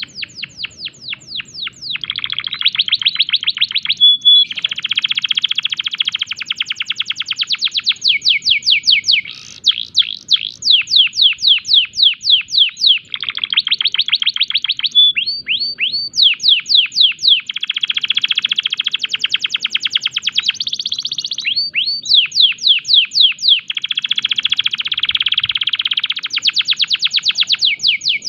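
Male domestic canary singing continuously in breeding condition. Its song is made of rapid trills of repeated downward-sweeping notes, switching to a new trill every few seconds, with a few short whistled notes in between.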